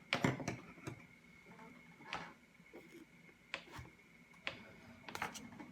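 Yo-yos being handled and set down: a few scattered light clicks and taps, about a second apart.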